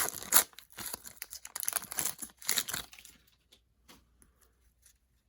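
A Panini Mosaic basketball hobby pack's wrapper being torn open and crinkled, dense and busy for about three seconds, then a few faint ticks before it dies away.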